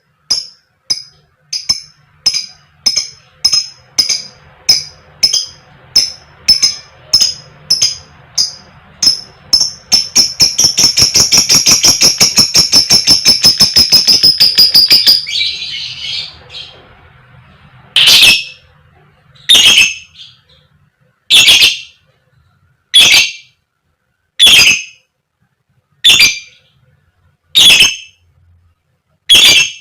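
Fighter lovebird calling. Sharp repeated chirps come about twice a second, then break into a fast rattling chatter for about five seconds in the middle. After that come loud single 'koek' calls, about one every second and a half.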